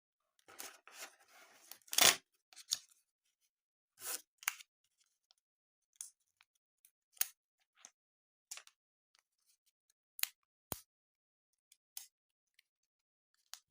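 Plastic blind-bag packaging being handled and opened: a crinkling rustle, a loud sharp snap about two seconds in, then scattered light clicks and snips.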